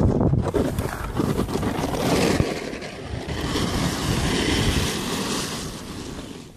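Wind buffeting the microphone of a handheld camera: a heavy low rumble for the first couple of seconds, then a higher hiss that swells in the middle and fades near the end.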